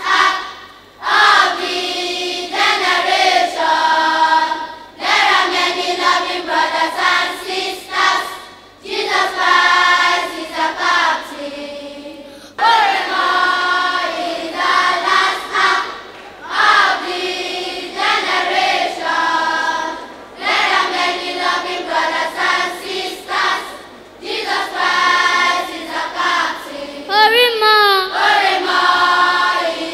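Children's choir singing a gospel song in short phrases with brief breaks between lines. A little before the end, one voice slides up and down in pitch above the choir.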